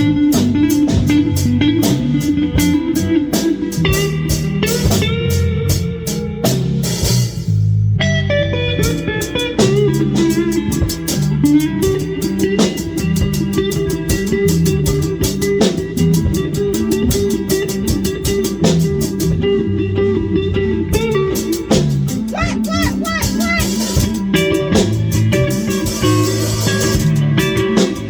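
Live band jam: a drum kit keeping a steady beat under electric guitar, bass guitar and synth, with a brief break in the texture about eight seconds in before the groove carries on.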